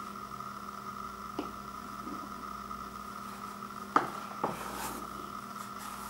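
Plastic casing of a Sunbeam 7-outlet power strip handled and turned over in the hands: a few light clicks and knocks, the sharpest about four seconds in, over a steady faint background hum.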